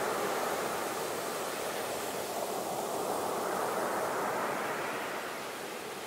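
Ocean surf, waves breaking and washing in as a steady hiss that eases slightly near the end.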